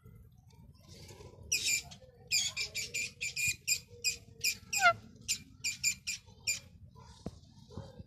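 Rose-ringed parakeet (Indian ringneck) giving a rapid string of short, shrill screeching calls, about three a second, starting about a second and a half in and stopping shortly before the end.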